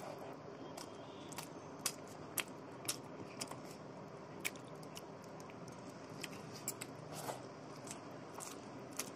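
Close-up eating sounds of someone eating rice by hand: chewing and lip smacks, with fingers mixing rice on a steel plate. A run of sharp, irregular clicks over a faint steady background.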